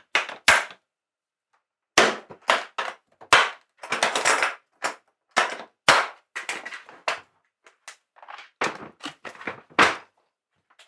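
Sharp plastic clicks and knocks of Stanley organiser cases being handled: latches snapping, clear lids closing, and cases set down onto one another. The clicks come irregularly, with a short pause near the start and quick clusters later.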